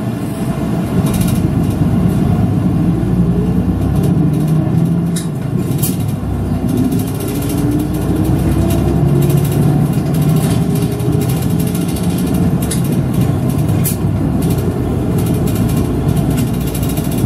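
Route bus engine running as the bus drives, a steady low rumble heard from inside the bus. The engine pitch rises in a few steps a few seconds in as it picks up speed.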